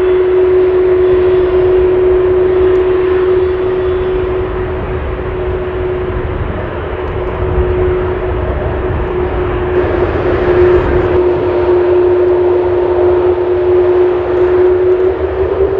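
Airbus A330-200 jet engines running at taxi power: a steady whine over a low rumble. The pitch starts to rise near the end as the engines begin to spool up.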